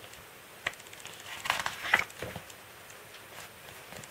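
A page of a thick paper photo book being turned by hand: a light tap just over half a second in, then a short rustle and flap of the page at about one and a half to two seconds.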